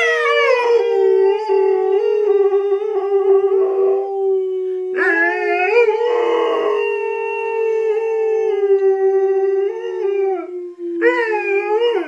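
Rhodesian Ridgeback howling: long drawn-out howls that waver and slide in pitch, with a fresh rising howl near the end.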